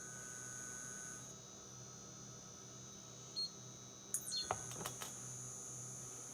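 Frigidaire FGIC3066TB induction cooktop giving off a steady high-pitched whine over a low hum: the high pitch, loud noise it is faulted for. A short beep sounds about three and a half seconds in, followed by a few clicks a second later.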